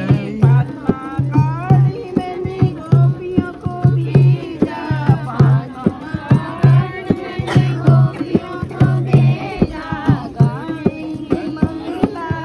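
A dholak played by hand in a steady folk rhythm, with deep booming bass strokes and sharp slaps on the treble head, while a group of women sing along.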